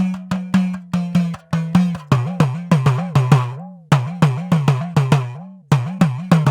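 Idakka, the hourglass drum of Kerala, struck in a quick even rhythm of about three strokes a second, each stroke ringing at a steady pitch. From about two seconds in, each stroke swoops down and back up in pitch, with two short pauses.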